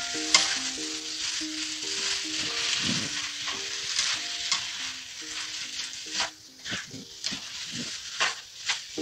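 Beef tripe and vegetables sizzling in a pan while a spatula stirs them, scraping and knocking against the pan. After about six seconds the sizzle thins out and single scraping strokes stand out.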